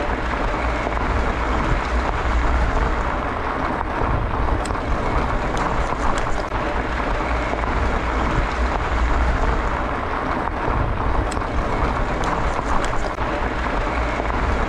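Steady wind rushing over the microphone while riding a bicycle on a sandy dirt road, with the rumble of the tyres and a few light clicks and ticks.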